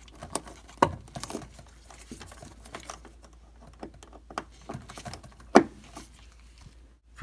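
Scattered small clicks and rustles from gloved hands pushing wire connectors onto the terminals of a washing machine heating element, with one sharper click about five and a half seconds in.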